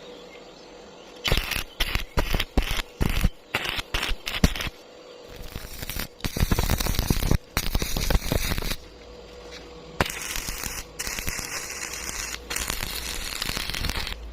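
Electric arc welding crackling: a quick series of short tack welds stopping and starting, then two longer continuous weld runs.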